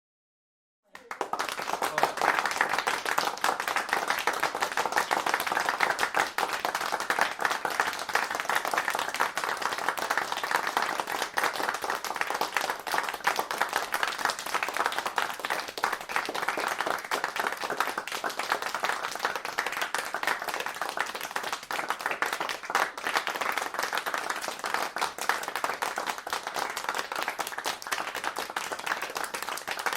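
A crowd applauding, many hands clapping densely and evenly. It starts suddenly about a second in, after a short silence, and stays steady.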